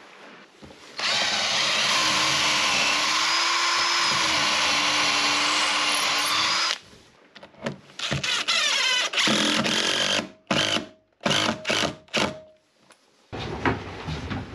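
Cordless drill boring into a wooden hull frame: one steady run of about six seconds, then several short trigger bursts as the bit works the hole.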